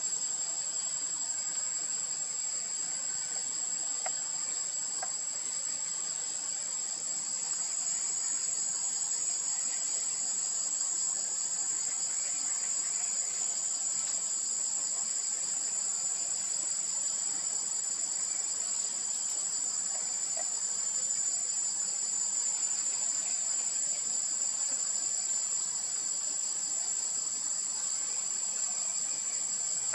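Steady high-pitched insect chorus, a continuous shrill trill with a lower pulsing buzz beneath it, unchanging throughout.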